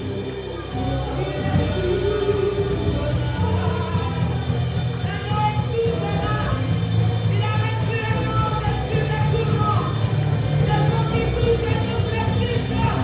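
Live worship music: a band with bass and voices singing a song.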